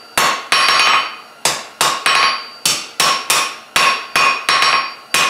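Hand hammer striking a red-hot bar of 3/8-inch square mild steel on a JHM Shaper anvil, about three blows a second with a short pause about half a second in. Each blow leaves the anvil ringing. The blows are drawing the leaf's stem out square.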